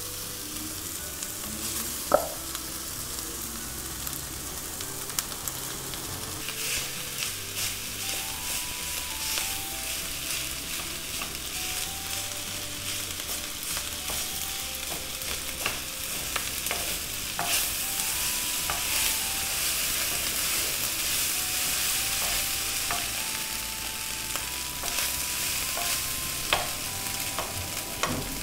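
Steamed rice, vegetables and small wurstel frying in a wok, sizzling, while a wooden spatula stirs and scrapes them with frequent knocks against the pan. A sharp knock comes about two seconds in. The sizzle grows louder about a quarter of the way through and stays up.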